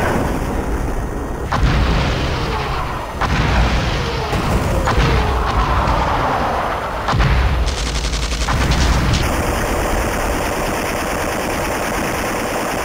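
Gunfire and booms: a dense, continuous low rumble broken by sharp reports every second or two.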